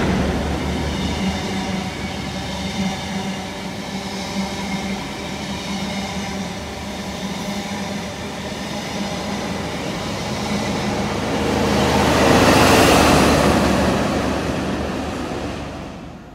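Class 43 HST passing through: the rumble of the coaches over the rails with a steady diesel hum, growing louder again about twelve seconds in as the trailing power car goes by, then cutting off just before the end.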